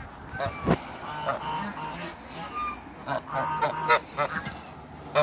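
Toulouse geese honking: a run of short, repeated honks at irregular intervals.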